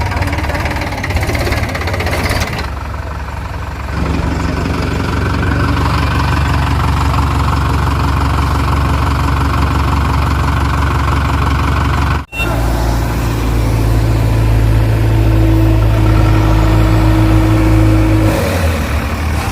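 Diesel engine of a JCB 3DX backhoe loader running steadily, picking up in level about four seconds in. Midway the sound drops out for an instant. The engine then runs louder, and a steady higher whine is held for a few seconds near the end.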